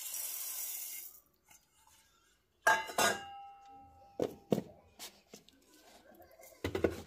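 Roasted whole spices (coriander, cumin, fennel seeds) poured from a steel bowl into a steel mixer-grinder jar, a soft dry trickle for about a second. Then two sharp metallic clinks that ring on briefly as the steel bowl and jar knock together, followed by several light knocks as the plastic lid is fitted and the jar is set on the grinder.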